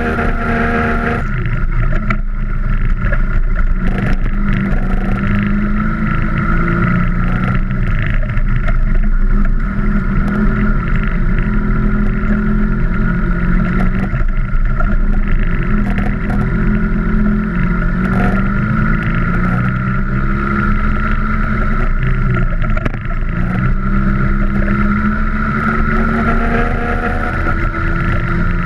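Vintage Vespa scooter's two-stroke engine running hard offroad, its pitch rising and falling over and over as the throttle is worked, with occasional knocks and rattles from the scooter hitting bumps.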